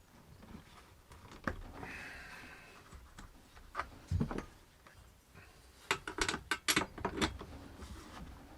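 Scattered small metallic clinks and clicks, with a brief squeak about two seconds in and a quick run of clicks near the end, as the spark plug boot is pulled and the spark plug is worked out of a Husqvarna 365 X-Torq chainsaw.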